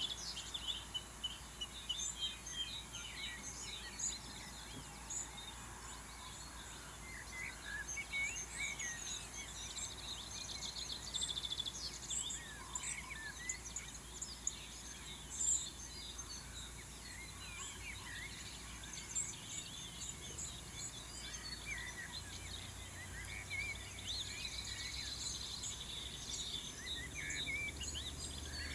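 Several small songbirds chirping and singing, with short quick trills now and then, over a steady low background rumble.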